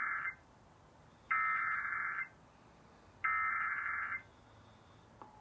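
Emergency Alert System SAME header: three bursts of screeching digital data tones of about a second each, the end of the first, then two more, starting a Required Monthly Test. A click and a faint steady tone begin near the end.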